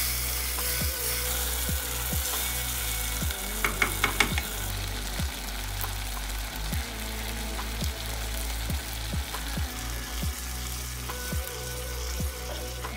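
Tomato sauce sizzling and bubbling in a pot on a gas stove as it is stirred with a wooden spoon. A quick run of sharp knocks comes about four seconds in.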